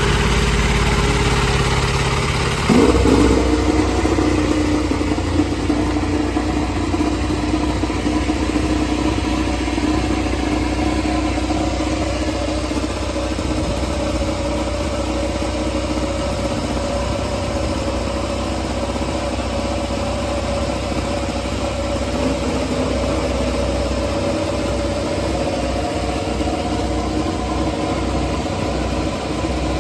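Ducati Desmosedici GP MotoGP V4 engine, just fired up, idling loudly with one short blip of the throttle about three seconds in; the idle note shifts slightly later on.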